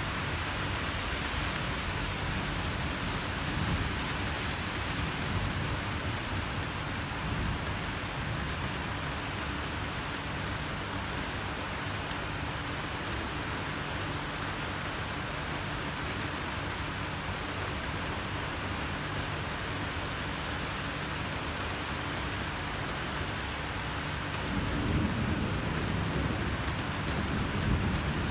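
Steady rain falling during a thunderstorm, with low thunder rumbling under it. A louder roll of thunder swells about three-quarters of the way through.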